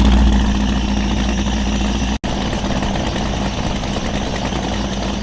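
Donzi ZRC speed boat's engines idling steadily, a low hum with a rumble underneath. The sound cuts out for an instant about two seconds in.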